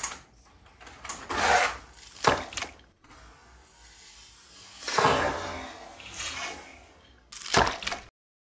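Die-cast toy monster trucks clattering down a plastic drop-tower track and splashing into a tub of muddy water. There are several separate clattering, splashing bursts with quiet between them.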